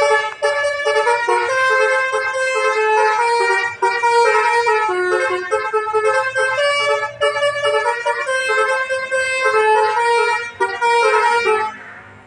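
Bus 'telolet' multi-tone horn playing a melody of short steady notes that step up and down in pitch, then stopping near the end.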